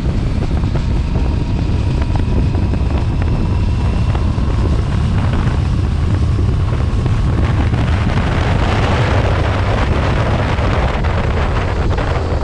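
Aprilia RS 457's parallel-twin engine running steadily around 5,000 rpm on its stock exhaust, with wind buffeting the microphone.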